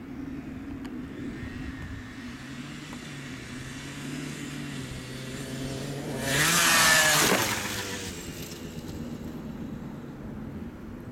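Honda CRM80 two-stroke single-cylinder engine, heard at a distance at first, then revving up as the bike comes past near the camera, loudest for about a second six to seven seconds in; its pitch then drops and it fades away.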